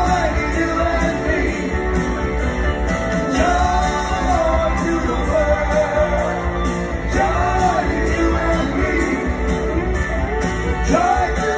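Live rock band playing, with lead singing over electric guitars, bass and drums, heard from the audience in a theatre. The sung lines come in phrases over a steady beat.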